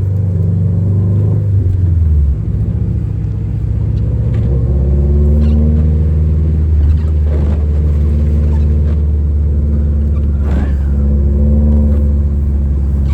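Subaru WRX's turbocharged flat-four engine running while driving, a steady low drone; its note dips about two seconds in, then holds steady.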